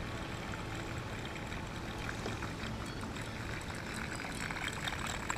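Surface lure gurgling and spluttering across the water as it is reeled in toward the kayak, over a steady hiss; the splashy sound grows louder about four and a half seconds in as the lure comes close.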